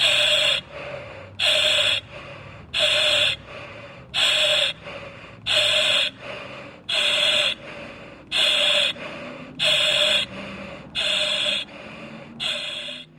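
Quick, even breathing through an oxygen mask: a loud rushing breath about every second and a half, each followed by a softer one, the last few a little weaker.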